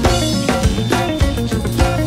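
Live band music with a steady beat: drum kit and hand-played djembe under keyboard and guitar.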